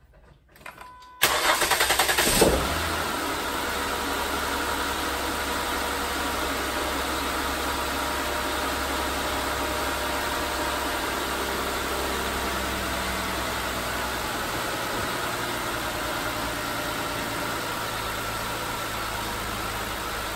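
2006 Mercury Montego's 3.0L V6 cranks and catches about a second in, then settles into a steady idle. The engine has freshly replaced ignition coils and spark plugs, fitted to cure a cylinder 3 misfire.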